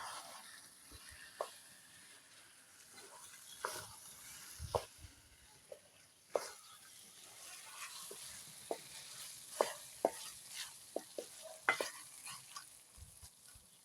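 A metal spoon stirring and scraping food in a hot pan, with irregular clinks and knocks against the pan over a steady sizzle of frying.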